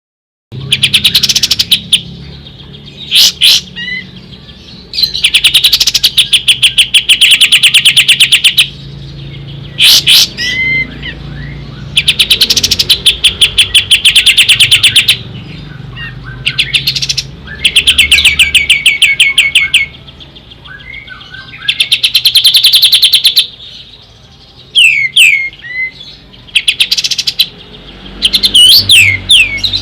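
Kapas tembak songbird singing loudly: runs of very fast, evenly repeated sharp notes lasting two to three seconds each, alternating with short whistled slides and brief pauses.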